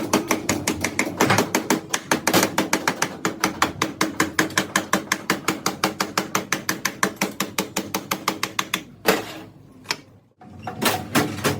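Rapid, evenly spaced metallic clicks from a hand tool working a steel tie rod part, about six a second. Near the end the run stops, one louder strike follows, then a short pause and a few more strikes.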